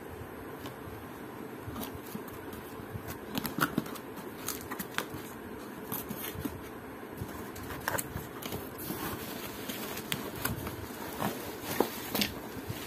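A cardboard box being opened by hand and its bubble-wrapped contents handled: irregular crackles, rustles and scrapes of cardboard flaps and plastic bubble wrap, over a faint steady hum.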